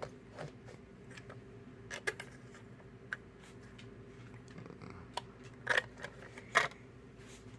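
Small, sharp plastic-and-metal clicks from handling and pressing tiny model-car wheels and axle stems into place, a few light ones early and two louder snaps close together about six seconds in, over a low steady hum.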